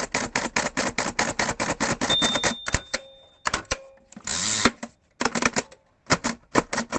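Mechanical braille writer being typed, its keys striking rapidly at about five a second. A ringing tone comes in about two seconds in, then a longer clattering rasp near the middle, then a few more groups of key strokes.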